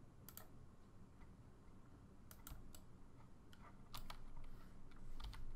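Faint, irregular clicks of a computer mouse and keyboard being worked, several in quick pairs.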